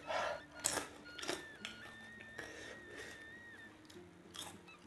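Close-up eating sounds of a person eating by hand: a few short chewing and mouth-smacking sounds, the loudest in the first second and a half and one more near the end.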